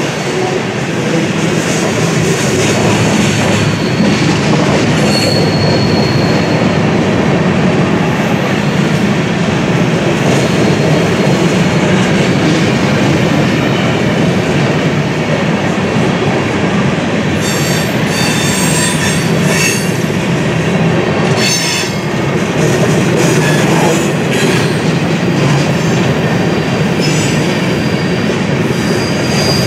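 Freight train cars rolling past in a steady loud rumble, with high-pitched wheel squeals now and then, a brief one early and several together past the middle.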